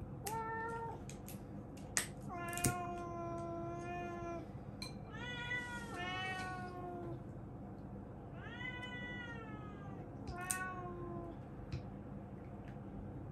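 Domestic cat meowing in protest while its claws are being clipped: about six calls, the longest held for about two seconds, some rising then falling in pitch. A few sharp clicks of the nail clipper come between the meows.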